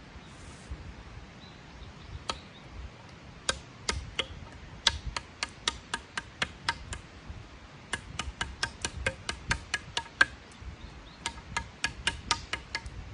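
A series of sharp, woody knocks: a few scattered ones at first, then quick runs of about four a second in the second half.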